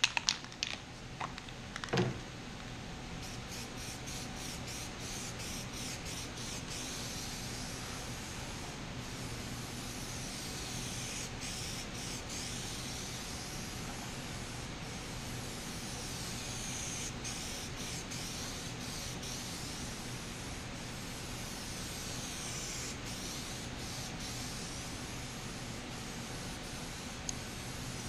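Aerosol spray can of primer hissing steadily as a heavy coat goes on over body filler on sheet metal, with a few sharp clicks in the first two seconds before the spray settles in.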